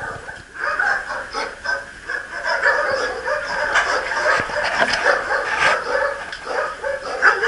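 Several shelter dogs in their kennels barking and yipping, many short overlapping barks one after another.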